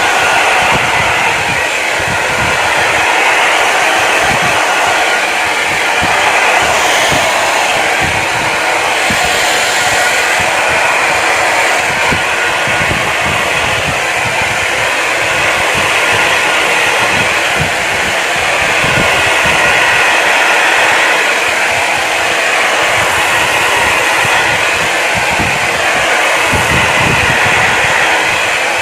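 Foldable hot-and-cold hair dryer running steadily, a loud even rush of air that swells and eases slightly now and then.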